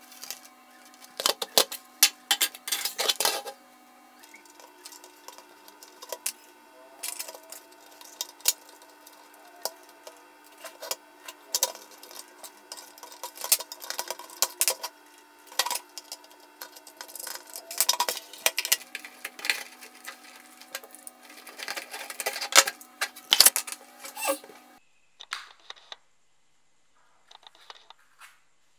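Plastic wall clock case and parts being handled and pried apart: irregular clicks, taps and knocks, some sharp and loud, over faint steady tones that change pitch a couple of times. The handling stops a few seconds before the end, leaving only a few faint ticks.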